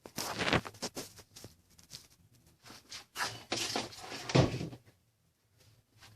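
Irregular knocks, clicks and scrapes of the engine's timing cover being handled and set against the engine for a trial fit without sealant, with one heavier thump about four seconds in.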